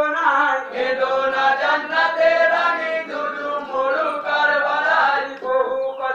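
A group of men chanting a marsiya, a devotional mourning elegy, together in a sing-song chorus.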